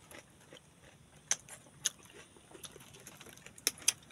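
A few sharp, short clicks and light knocks, four in all, from handling the camera as it is picked up off the table.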